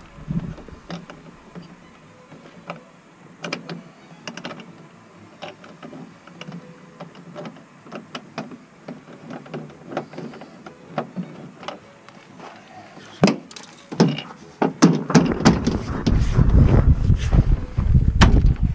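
Small scattered clicks and taps of screws and metal handle parts being handled and fitted inside a van door, with two sharp knocks about thirteen and fourteen seconds in. A loud low rumbling noise follows near the end.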